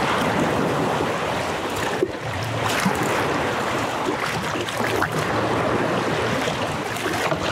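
Small waves breaking and washing around a kayak's hull as it is paddled out through the surf, a steady rush of water with a few sharper splashes.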